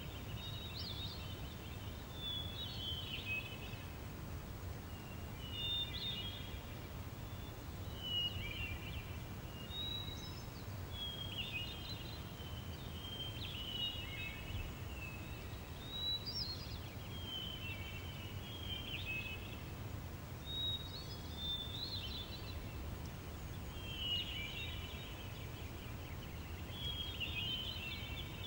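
Birds singing: short chirping, warbling phrases repeating every couple of seconds, over a steady low rumble of background noise.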